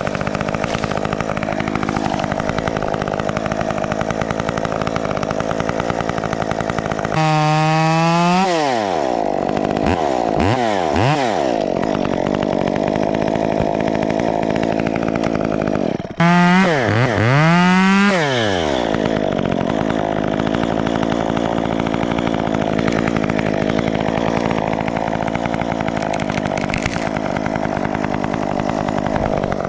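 Chainsaw running continuously as it cuts through a tree limb, its engine pitch swooping down and back up twice, about a quarter of the way in and again just past halfway.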